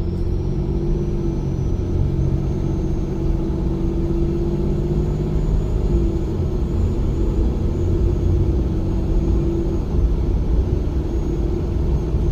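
Cummins 6.7 inline-six turbo diesel pulling away at normal throttle, heard inside the cab: a steady engine rumble with a high, thin turbo whistle held throughout, from a billet VGT turbocharger.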